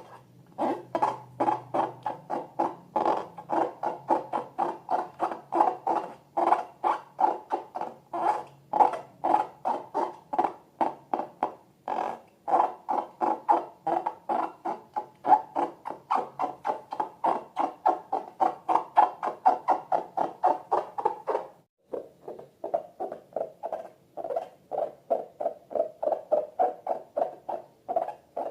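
Rubber balloon squeaking in quick rhythmic strokes, about three to four a second, with a short break about three-quarters of the way in.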